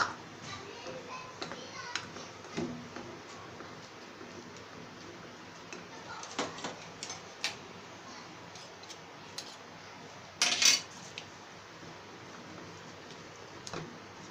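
A metal spoon and wire whisk clinking and scraping against a bowl while stirring thick gram-flour batter, in scattered short clicks with a louder clatter about ten and a half seconds in.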